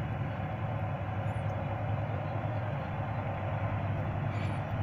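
Steady outdoor background noise: a low rumble with a layer of hiss, and two faint high chirps, one about a second in and one near the end.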